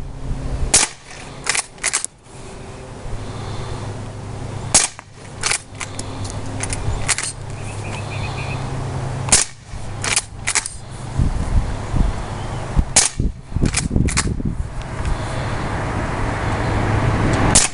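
Umarex Legends Cowboy lever-action CO2 BB rifle fired quickly: sharp CO2 shots with clacks of the lever being worked between them. They come in tight clusters of two to four sharp cracks, about every three to four seconds, over a steady low hum.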